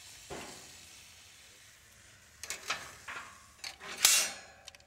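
Metal grill tongs clicking and clacking against a glass bowl and the grill as soaked mesquite wood chips are moved into a gas grill's smoker box, with a brief hiss about four seconds in.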